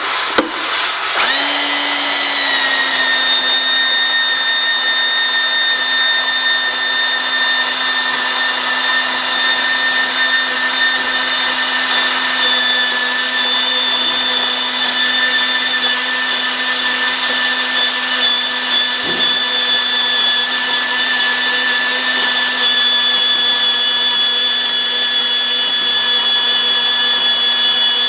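Ridgid power pipe-threading machine starting up about a second in, its whine dropping slightly in pitch as it takes the load, then running steadily while working 2-inch gas pipe. A single knock comes a little past the middle.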